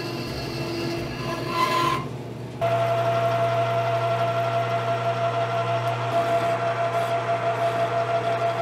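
A bandsaw cutting through a 6061 aluminium round bar. Then, after an abrupt change about two and a half seconds in, a metal lathe runs with a steady hum and whine while a hand file rasps against the spinning aluminium stock, with a light regular pulsing.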